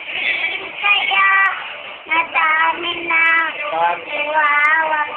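A young girl singing in a high voice, holding notes in short phrases with brief breaks between them.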